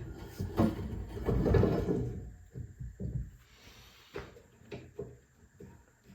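A homemade work platform being handled and set in place on a 2x72 belt grinder with the grinder switched off: a scraping slide, then a run of separate light knocks and clicks.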